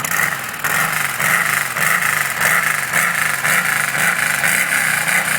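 Yamaha Midnight Star 950's air-cooled V-twin idling steadily with an even, pulsing beat through a Roncar Scorpion 2Way exhaust. The exhaust's butterfly valve is closed in its silent setting, which keeps the sound very close to the stock exhaust.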